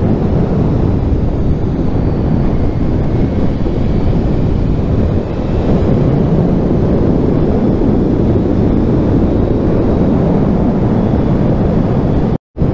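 Wind rushing over the microphone of a motorcycle at speed, over the steady rumble of the Kawasaki Z1000's inline-four engine running on its stock exhaust. The sound drops out for a moment just before the end.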